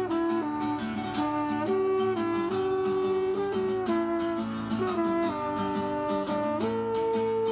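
French horn playing a melody of held notes over a strummed acoustic guitar, with no singing.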